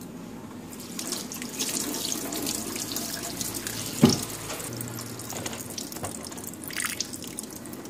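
Kitchen tap running into a stainless steel sink, the water splashing over hands and raw meat being rinsed in the stream. A single sharp thump about halfway through.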